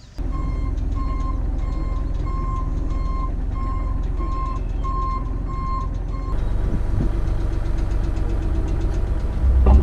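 Mini excavator's engine running steadily, heard from the operator's seat, with a beeping warning alarm pulsing about three times every two seconds that stops about six seconds in. Near the end the engine gets louder, with a few heavy low knocks.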